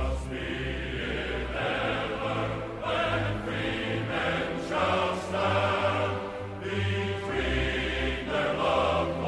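Background music with sustained, choir-like voices over a bass line that changes note every second or so.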